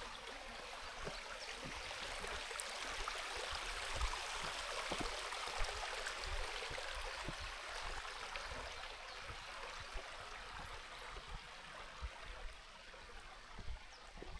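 Steady rush of running water, swelling slightly in the middle, with scattered soft low knocks beneath it.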